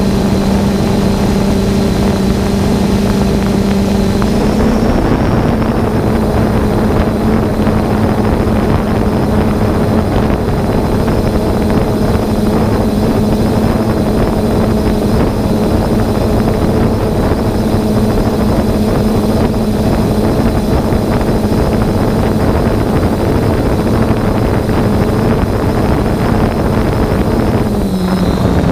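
Quadcopter drone's propellers and motors humming steadily. The pitch rises slightly about four to five seconds in and drops back near the end.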